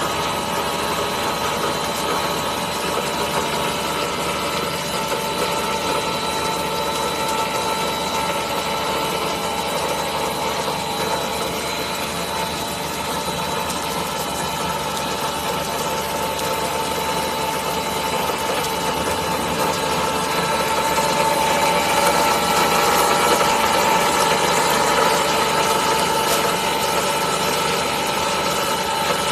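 High-speed 1250 mm cast stretch-film production line running: a steady machine hum with several steady whining tones, growing slightly louder about two thirds of the way through.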